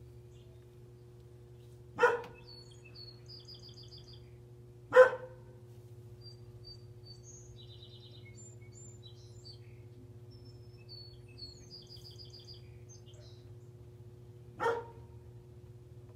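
A dog barks three times, single barks a few seconds apart, the second the loudest. Small birds chirp in short, fast trills in the background over a steady low hum.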